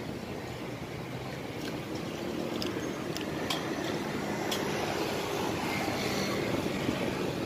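Steady roadside traffic rumble, with a few light clinks of a metal spoon against a plate about two to four and a half seconds in.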